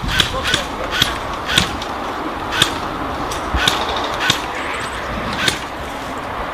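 Airsoft guns firing single shots, sharp snapping clicks at irregular spacing about once or twice a second, over a steady background hiss.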